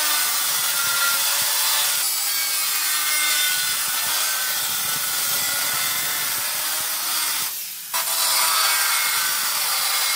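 Angle grinder with a diamond tile-cutting blade cutting through a corrugated metal roofing sheet: a steady hiss of blade on metal over the motor's whine. The cut breaks off briefly about three-quarters of the way through, then starts again.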